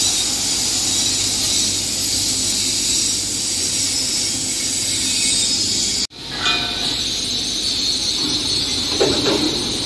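Steady machinery noise from a running concrete block-making machine: a continuous high hiss over a low hum. It cuts out for an instant about six seconds in and carries on unchanged.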